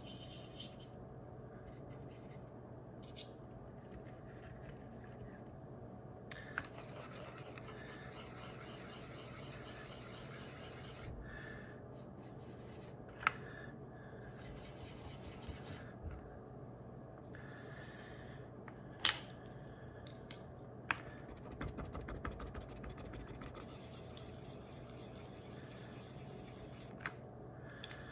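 Faint rubbing and scratching as stain is dabbed and worked into a tobacco pipe's bowl by hand, with a few light, sharp clicks along the way.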